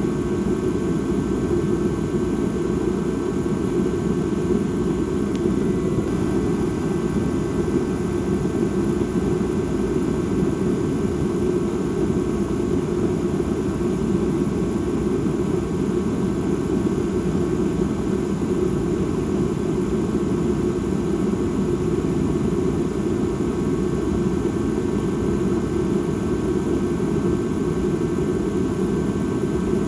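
Dark ambient drone: a steady, unchanging low rumble with a few faint high tones held above it.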